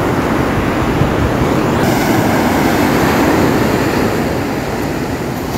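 Ocean surf breaking steadily on a sandy beach, with wind rumbling on the microphone.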